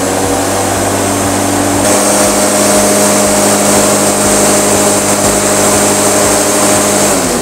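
An AZB 850 electric lawn mower's 850-watt copper-wound motor running at full speed with its 15-inch blade spinning: a loud, steady whine that gets a little louder about two seconds in. Near the end the pitch falls as the motor spins down when the clutch lever is let go.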